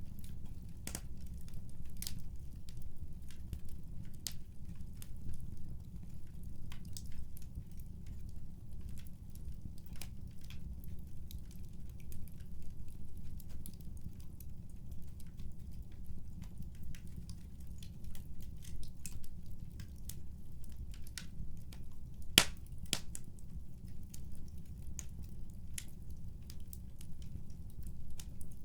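Fireplace fire crackling: irregular sharp pops and snaps over a steady low rumble, with one louder pop about two-thirds of the way through.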